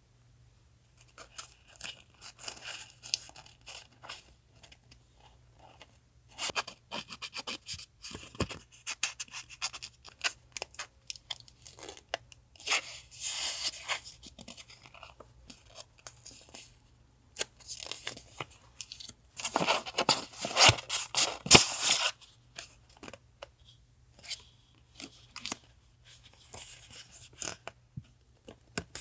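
Paper and stationery being handled by hand: irregular crinkling, rustling and tearing in short bursts, with a louder stretch of crinkling about twenty seconds in. A faint steady refrigerator hum runs underneath.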